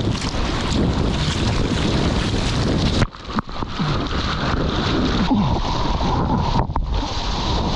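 Wind buffeting the camera microphone over the splash and rush of hands paddling a surfboard through choppy sea water. About three seconds in the sound briefly drops away.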